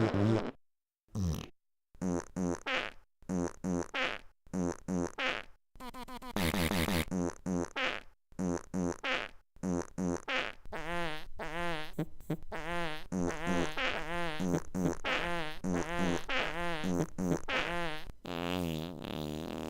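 A string of short, pitched fart sounds at a steady beat, about two a second, played as a tune; from about halfway they turn into longer farts with a wavering pitch.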